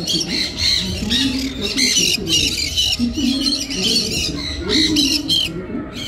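Caged small parrots, lovebirds and cockatiels, chirping and squawking in a dense run of quick, shrill calls.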